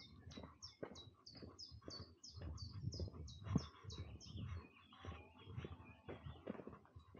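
A songbird singing a fast run of repeated high notes, about three a second, that stops after four seconds or so, followed by scattered chirps. Under it run the walker's footsteps, about two a second.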